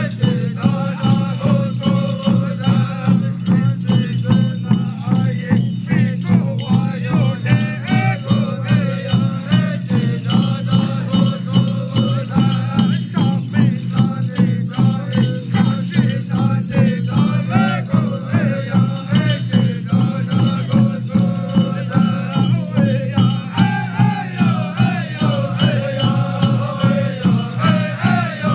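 Men singing an Apache ceremonial chant to a steady drumbeat, with tin-cone jingles shaking.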